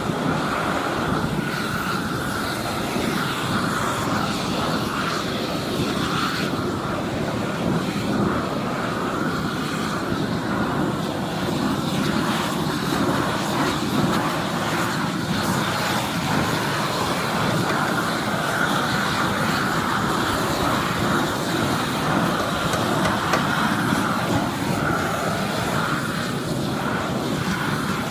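Propane roofing torch burning steadily, heating rolled torch-down roofing membrane.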